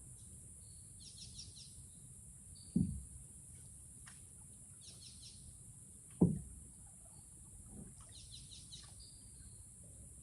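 Rainforest ambience: a steady high-pitched insect drone, with a bird repeating a short rapid trill three times and giving softer single whistles between. Two dull knocks from the canoe, about three seconds apart, are the loudest sounds.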